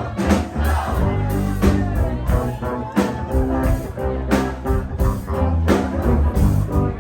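Live rock band playing a song: a drum kit keeping a steady beat under electric bass and guitars.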